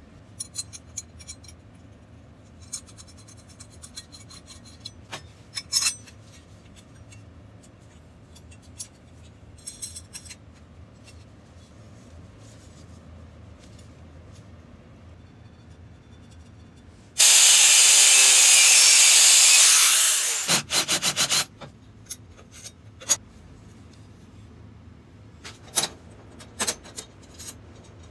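Steel square tubing handled and clamped on a steel fixture table: scattered clicks, light clanks and short scraping rattles. About seventeen seconds in, a very loud, harsh rushing noise starts abruptly, holds steady for about three seconds and cuts off, followed by a few short bursts.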